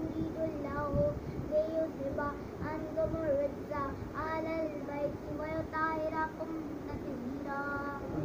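A child's high voice singing softly, a wavering melodic line in short held phrases.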